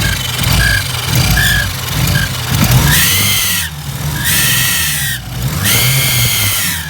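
Mitsubishi Lancer Evolution VI's turbocharged four-cylinder engine running and being blipped, with a high screech each time the revs come back down off throttle: three screeches in the second half, the running fault the owner is showing.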